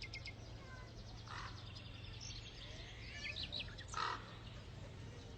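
Small birds chirping against faint outdoor background noise: a quick trill at the start, a few short high chirps about three seconds in, and a brief louder call about four seconds in.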